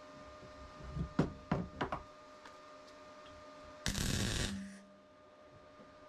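Steel parts knocking on a workbench as plates are handled and set in place, a few sharp knocks close together. About four seconds in comes one loud, sudden burst of noise lasting about half a second, followed by a short low hum.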